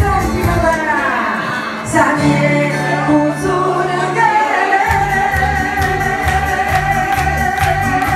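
A woman singing with instrumental backing and a pulsing bass; her voice glides between notes, then holds one long note through the second half.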